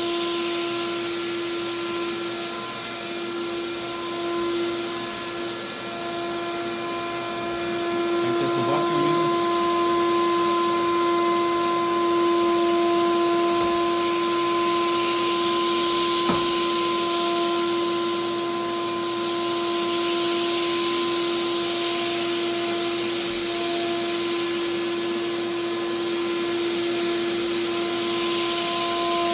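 Single-disc rotary floor sander running across a bare pine floor, its dust hose drawing through a shop vacuum: a steady motor hum and whine over a broad hiss of sanding and suction, getting a little louder about eight seconds in.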